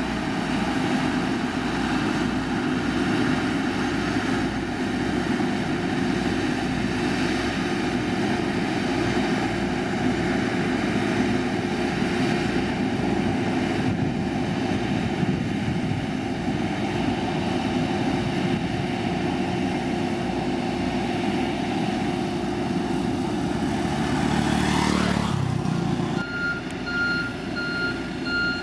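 Heavy road-construction machine's diesel engine running steadily under load. Near the end the engine note falls away and the machine's reversing alarm starts beeping at an even pace as it backs up.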